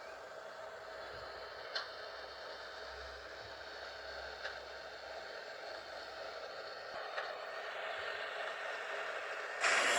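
Small electric motors of a LEGO Technic remote-controlled car whining steadily and slowly growing louder, with a sharp click about every two and a half seconds. A much louder rush of noise starts suddenly near the end.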